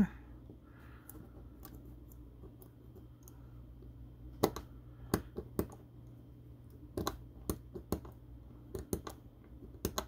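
Number wheels of a Brinks 165 four-digit combination padlock clicking through their detents as they are turned digit by digit, while a shim pushed into the top of the wheels feels for each wheel's gate. The clicks are irregular and sparse at first, coming more often from about halfway.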